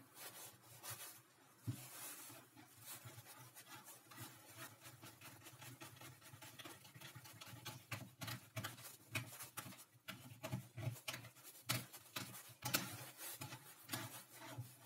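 Wooden parts of a homemade screw clamp being handled and adjusted: a quiet run of small clicks, knocks and wood-on-wood rubbing that gets busier and louder about eight seconds in, with one sharper knock near the end.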